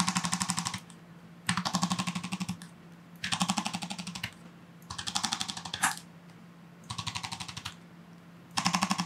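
A chiropractor's handheld electric tapping instrument pecking against the lower-back muscles over a tight muscle knot. It runs in six bursts of rapid taps, each about a second long, with short pauses between.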